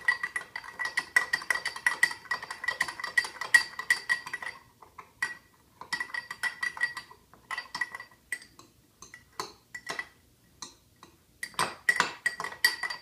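A spoon stirring dry yeast into warm water in a small glass, clinking rapidly against the glass and setting it ringing. The stirring runs steadily for about four seconds, then comes in short spells with pauses between them.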